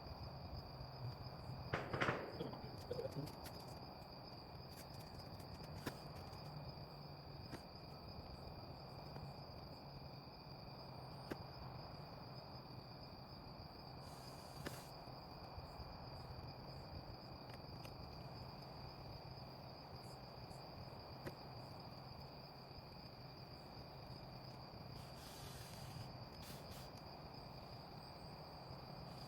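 Steady chorus of night insects, with a low steady hum beneath and a brief clatter about two seconds in.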